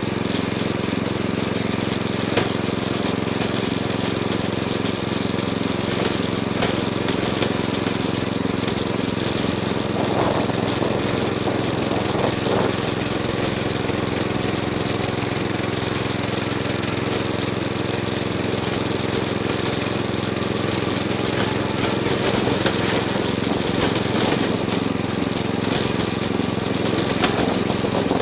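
Riding lawn mower engine running steadily as the mower drives along, heard from a camera bolted to its hood, with a few sharp knocks scattered through.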